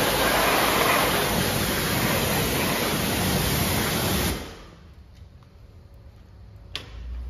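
Pressure-washer jet spraying an alloy wheel and tyre, a steady hiss that cuts off suddenly about four seconds in as the spray stops. A single sharp click near the end.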